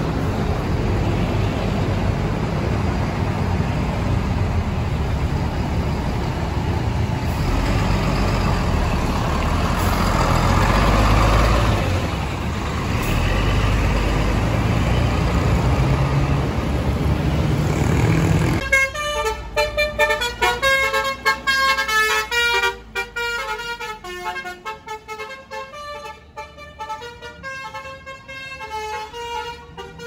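A tour bus's diesel engine runs close by with heavy road and crowd noise. About two-thirds of the way through this cuts off, and a bus's basuri musical horn plays a melody of short stepped notes.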